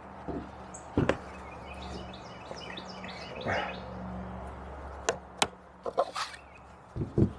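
Knocks, taps and clicks of a folding solar panel being handled, opened out and folded against a deck table: one sharp knock about a second in, then a cluster of quick knocks near the end. A bird chirps faintly in the background in the first half.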